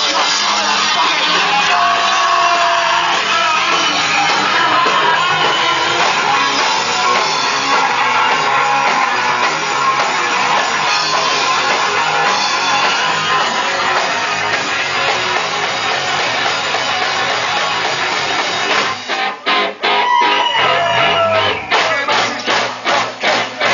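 Punk rock band playing live: distorted electric guitar, bass and drums played loud together. Near the end the full band breaks off, then plays short, evenly spaced hits, about four a second.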